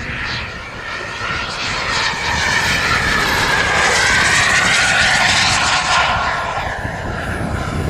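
Radio-controlled model jet's turbine engine whining as the jet makes a pass. It grows louder to a peak about four to six seconds in, its pitch bending down as it goes by, then fades somewhat.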